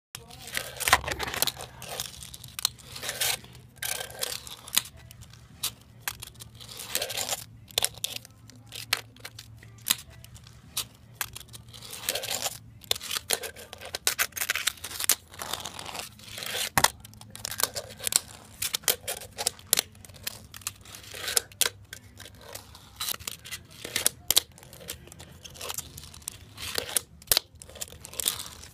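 Fingerboard wheels rolling and scraping over a rough brick and concrete ledge, broken by many sharp, irregular clacks of the deck popping, hitting and landing on the surface.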